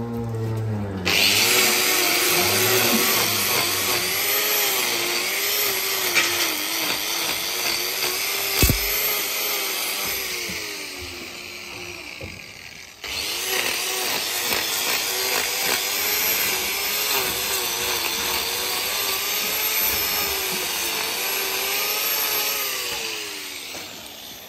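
Angle grinder with a hoof-trimming disc grinding a cow's hoof: the motor whines and its pitch dips and recovers as the disc bites into the horn. It drops away and starts up again about halfway through, with a single knock a little before that.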